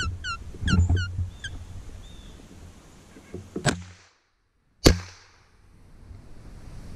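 A single sharp gunshot about five seconds in, the loudest sound, from a gun fired at a squirrel. Before it come a run of quick falling chirps for the first second and a half over a low rumble, and a click just before the shot.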